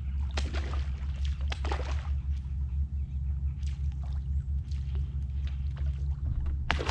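Small topwater popper lure being twitched across the water, chugging and splashing in short irregular pops, with a steady low hum underneath. Right at the end comes a louder, sharper splash as a snapper strikes the popper.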